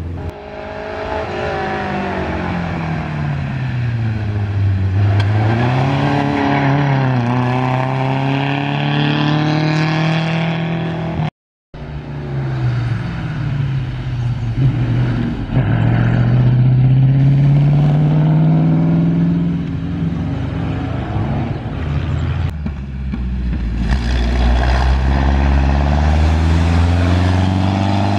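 Vintage racing car engines at full throttle climbing a hillclimb course, the engine note repeatedly climbing and then dropping at each gear change. A short gap in the sound comes about eleven seconds in, and another run follows.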